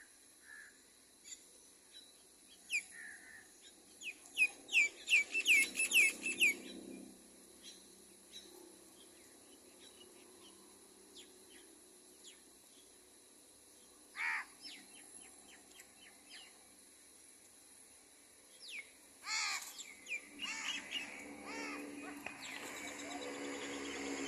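Birds chirping and calling in short, sharp notes, with a quick run of chirps about five seconds in, scattered single calls after that, and busier calling near the end.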